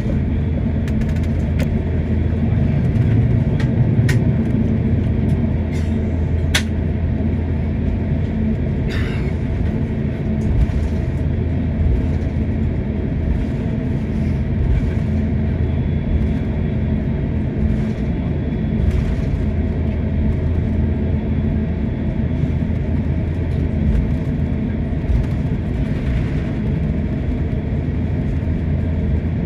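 Steady low rumble inside an airliner's cabin as it taxis after landing, with a few brief clicks.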